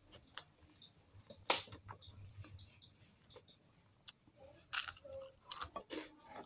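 Crunching and chewing of crispy fried tripe, eaten close to the microphone: a string of sharp crunchy crackles, loudest about a second and a half in and again near five seconds.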